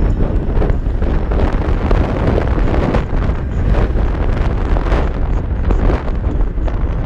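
Wind buffeting the microphone of a camera riding on a moving electric scooter: a loud, steady rushing rumble that flutters in strength.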